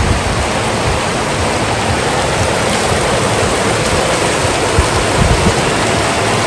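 Shallow stream rushing over rocks and rapids: a steady, even rush of water.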